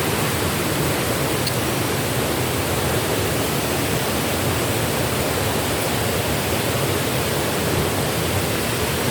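Steady rushing water of a stream, an even noise with nothing standing out of it.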